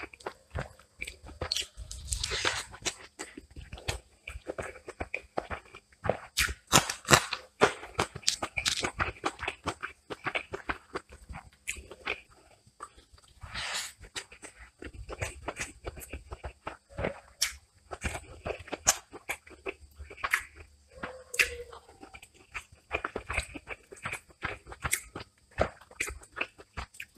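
Close-miked eating of a masala chicken drumstick with rice eaten by hand: wet chewing, biting and mouth smacks, as a steady stream of irregular short clicks.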